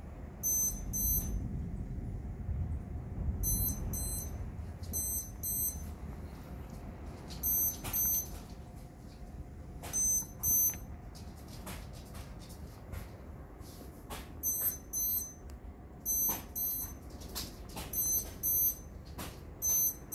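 A lightning detector beeping in pairs, two short high beeps for each lightning strike within 15 miles, about nine pairs in quick succession, a sign of frequent close strikes. Underneath is a steady rush of heavy rain, with a low rumble of thunder in the first few seconds.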